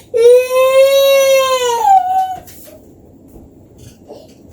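A toddler's cry: one long, loud wail of about two seconds that holds its pitch and drops at the end.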